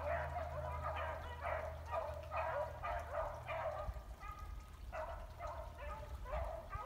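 Pack of beagles baying, short repeated calls about two a second with several voices overlapping, easing off for a moment about four seconds in.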